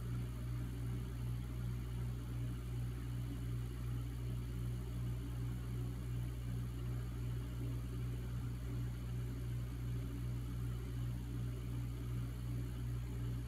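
Steady low hum with a slight regular waver and a faint hiss above it.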